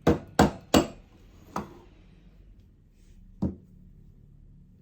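Espresso portafilter knocked against a counter three times in quick succession, then twice more lightly, settling the ground coffee in the basket before it is leveled.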